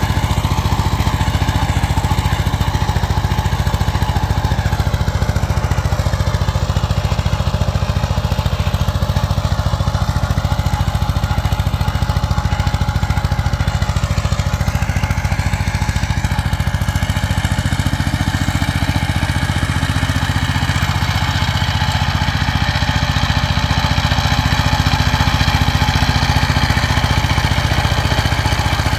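Two-wheel power tiller's single-cylinder diesel engine running steadily under load as it tills the field. It grows slightly louder near the end.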